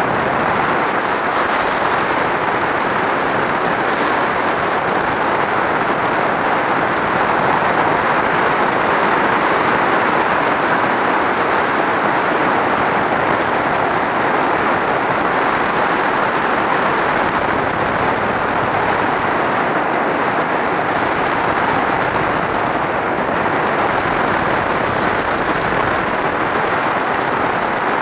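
Steady rush of wind and road noise on a helmet-mounted camera, from a motorcycle riding at road speed, with the engine buried under the wind.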